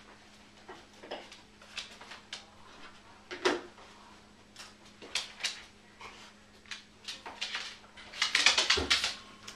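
Scattered clicks, taps and small clinks of a leashed corgi in a harness moving about on a hardwood floor, with a denser, louder flurry of them near the end.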